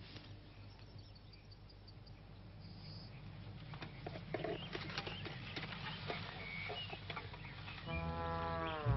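Scattered light clicks and clatter, growing busier from about four seconds in. Near the end a brass instrument comes in with a low sustained note that slides down and back up.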